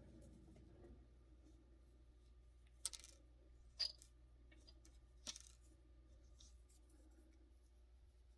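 Near silence broken by three light clicks, about three, four and five seconds in: small 3D-printed plastic tail-light pieces being handled and fitted together.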